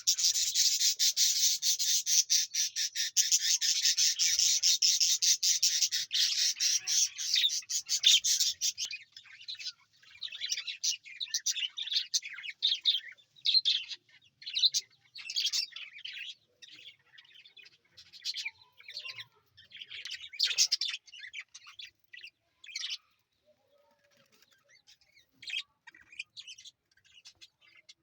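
Budgerigars chirping: a dense, fast run of high chirps for about the first nine seconds, then separate chirps coming in short clusters and thinning out toward the end.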